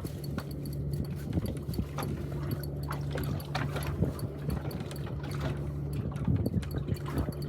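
A boat's motor running steadily under water sloshing and splashing, with scattered short splashes.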